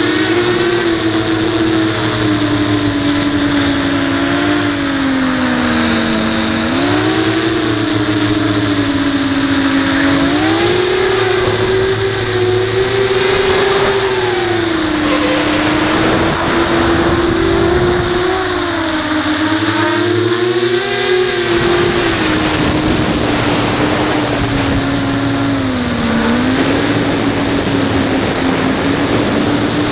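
Brushless motors and 5-inch propellers of an FPV quadcopter, heard through its onboard camera: a steady whine whose pitch keeps sliding up and down as the throttle changes. Wind rushes over the microphone underneath.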